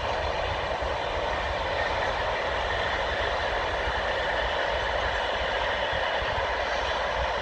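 Class 66 diesel freight locomotive, an EMD two-stroke V12, passing at a distance with a long train of empty flat wagons: a steady mix of engine and wagon running noise.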